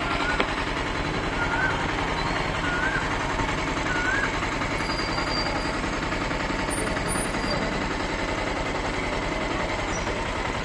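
Auto-rickshaw's small engine idling with a rapid, steady putter. A short high rising chirp repeats four times, about every second and a half, in the first few seconds.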